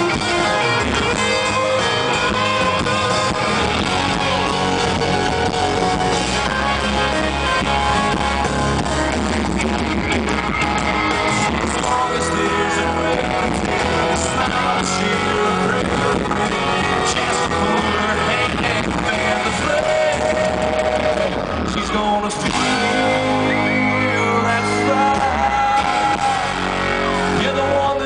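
Live country-rock band playing loudly, with electric guitar and a lead singer over the full band.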